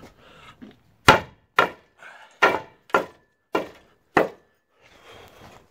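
Hammer blows against a concrete garage post: six strikes starting about a second in, roughly half a second apart.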